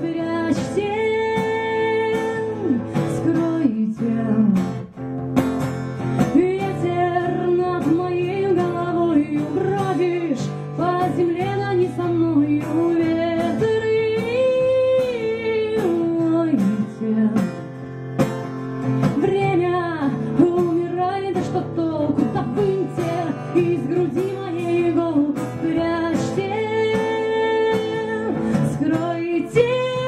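A woman singing a song while strumming an acoustic guitar, her voice carrying a melody over steady strumming.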